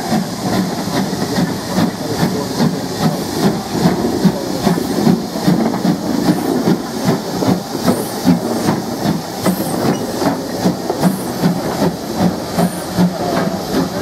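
GWR 1500-class pannier tank steam locomotive passing at low speed, hissing steam with a regular beat about twice a second.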